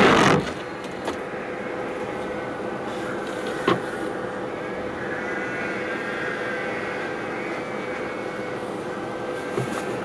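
Inside a four-wheel-drive vehicle creeping along a gravel lane: steady engine and road noise with a constant hum. A windscreen wiper swishes across once right at the start, and a single sharp click comes a few seconds in.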